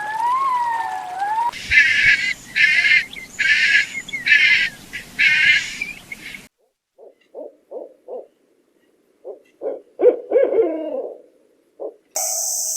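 A series of animal calls: a call gliding up and down in pitch, then a run of about six short, harsh calls, then a string of short low hooting notes.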